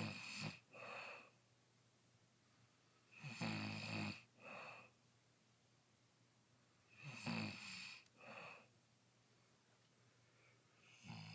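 A sleeper snoring in a slow, even rhythm, three times, about every three and a half to four seconds. Each breath is a longer, louder snore followed by a shorter, fainter one, with quiet between, and the next breath begins at the very end.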